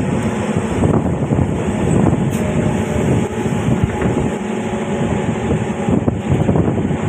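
A train running at speed, heard from on board: a steady, loud rumble and rattle of the carriage on the rails.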